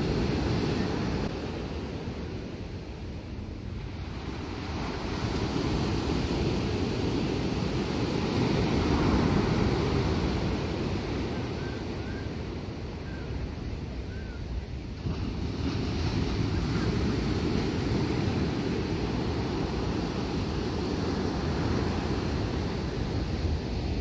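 Ocean surf breaking and washing up a sandy beach, swelling and easing every several seconds, with wind rumbling on the microphone.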